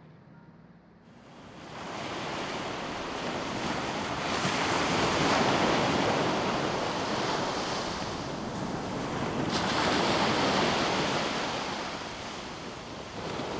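Outdoor rushing noise that starts about a second in, then swells and eases in long surges several seconds apart, like surf or wind.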